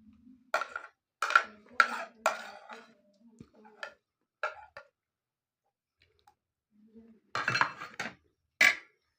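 Dishes and cutlery clinking and clattering in a series of sharp, irregular knocks, several in quick succession at first, then a pause, then a few more near the end.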